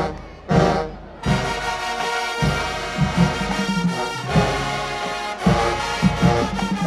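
HBCU marching band brass and percussion playing: a few short punched chords, then from about a second in a sustained full-band passage with drums beneath.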